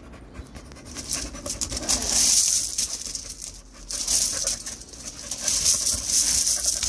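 A dog playing with a piece of brick on loose gravel. It breathes hard in repeated hissy bursts, and the brick and stones scrape and click under its paws and mouth.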